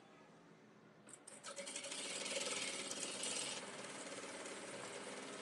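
Industrial single-needle sewing machine stitching a seam through soft fabric: it starts about a second in, runs steadily at speed, and eases slightly about halfway while still running at the end.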